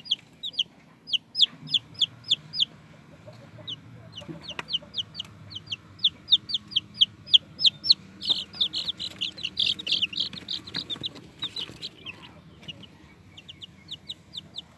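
Baby chicks peeping: a rapid string of short, high peeps, each falling slightly in pitch, several a second. They are densest and loudest around the middle and thin out near the end.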